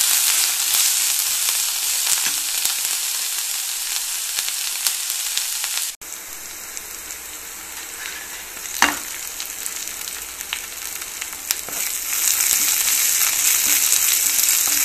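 Chopped onions, garlic and green chillies sizzling in hot oil in a kadai while being stirred and scraped with a spatula. The sizzle cuts off suddenly about six seconds in and resumes quieter, with a single knock of the spatula a few seconds later, then grows louder again near the end.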